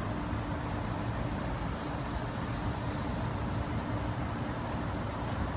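Steady outdoor background noise: an even rushing hiss over a low rumble, with a constant low hum running under it.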